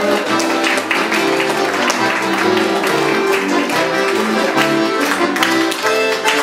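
Accordion playing a folk dance tune, with the audience clapping along.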